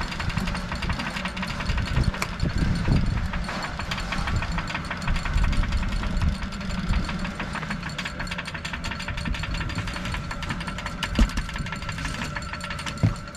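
A fishing boat's engine idling steadily under fast, dense mechanical ticking, with a couple of sharp knocks near the end.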